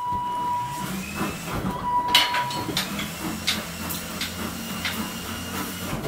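Caravan mover's electric drive motors whirring as they drive the caravan's wheels. They start suddenly, rise in pitch over about the first second, then run steadily, with scattered clicks and knocks as the caravan rolls on the new dual jockey wheel.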